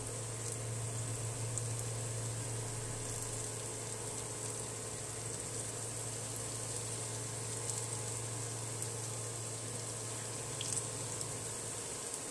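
Banana batter fritters deep-frying in hot oil: a steady sizzle with scattered small pops and crackles. A steady low hum runs underneath.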